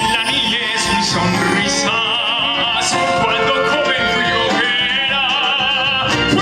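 Music from a folk band, with a high melody held in long, wavering notes with strong vibrato over dense instrumental backing.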